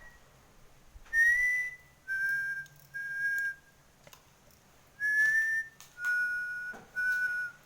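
A series of about six high whistled notes, each held for half a second to just under a second at a nearly steady pitch, a few rising slightly at the start. The notes come in uneven bursts with short gaps. The explorer likens the sound to someone whistling, and its source is not identified.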